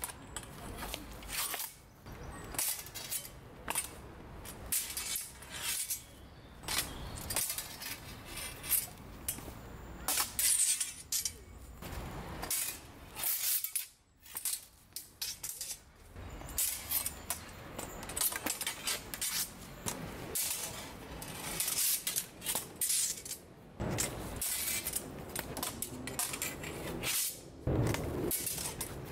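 Steel practice swords clashing against each other and against steel bucklers in sword-and-buckler drills: irregular metallic clinks and knocks, with a short lull about halfway.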